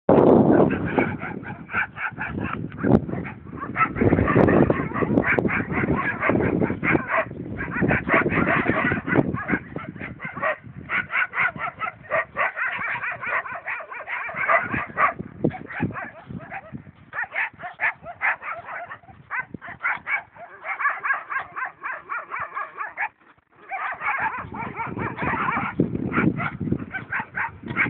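Dogs fighting: a nearly unbroken stretch of rapid, harsh growls, barks and yelps, with a brief pause about 23 seconds in.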